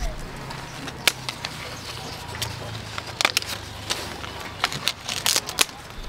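Scissors snipping lemon stems off a tree: a handful of sharp, irregular clicks, closest together in the second half, amid leaf rustle.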